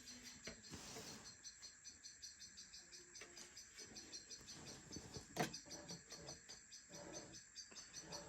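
Faint crickets chirping in a fast, even pulse, with a few light clicks and knocks from handling parts; the sharpest click comes about five and a half seconds in.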